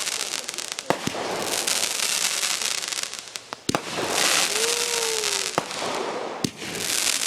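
Consumer fireworks going off: a loud, pulsing fizzing hiss broken by three sharp cracks.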